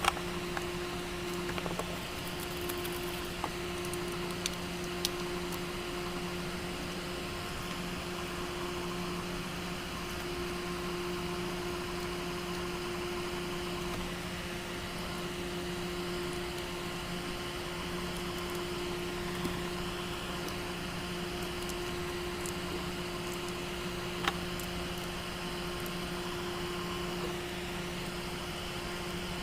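Steady electrical hum over a low hiss, with a single sharp click late on.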